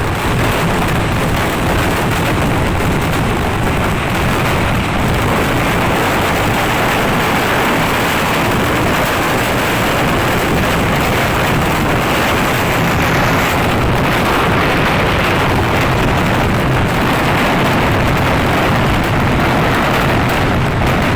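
Festival fireworks going off in a continuous barrage of rapid explosions and crackling, the blasts running together without a break.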